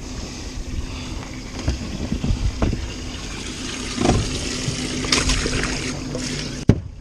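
Knocks and handling noise as a large flathead catfish is lowered into a boat's livewell, with water splashing about five seconds in. Underneath are wind on the microphone and a steady low hum, and a sharp click comes near the end.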